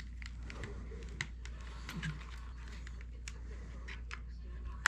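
Small sharp clicks and ticks of tiny plastic and metal parts being handled and pried as the main gear is taken out of a Tyco Power Torque motor, over a steady low hum.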